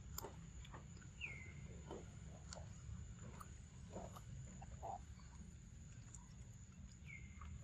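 Macaque chewing papaya up close: soft wet smacks and clicks, irregular and scattered. A short falling whistle sounds twice, about a second in and near the end, over a steady high tone.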